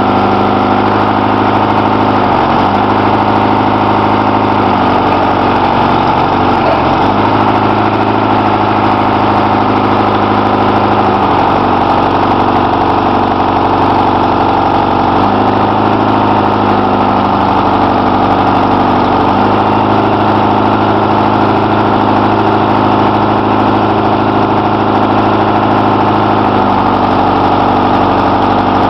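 Engine of an old forestry machine with a hydraulic knuckle-boom crane running steadily while the crane and grapple load rocks. Its note shifts slightly several times as the crane works.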